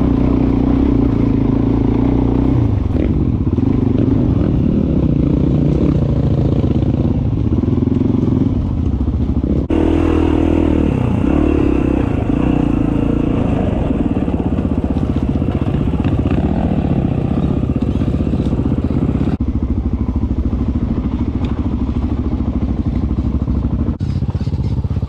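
Dirt bike engine being ridden along a rough trail, heard close up from the bike, its note rising and falling as the throttle is worked. The sound changes abruptly twice.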